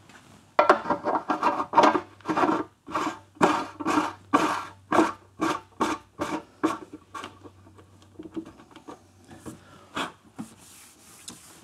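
Threaded metal filler cap being screwed by hand onto a motorcycle fuel tank, its threads rasping in short strokes about twice a second, which fade to fainter scrapes, with a sharp click near the end.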